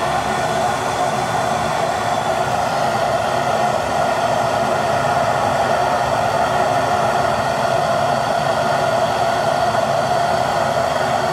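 MAP gas hand torch burning with a steady hiss as its flame heats a copper pipe joint while solder is fed in.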